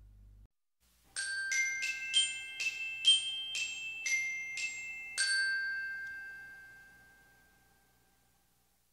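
Short outro jingle of struck, glockenspiel-like bell notes: about ten quick notes in a little melody, the last one ringing on and fading away over a few seconds.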